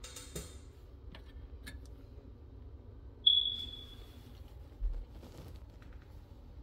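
A single high-pitched chirp about three seconds in, fading away over about a second, over a low steady hum with faint handling clicks and a short low thump near five seconds in.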